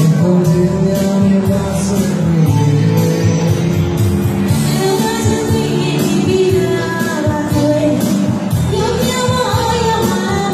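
Live Burmese pop duet: a man and a woman singing into microphones over a live band, amplified through the stage sound system.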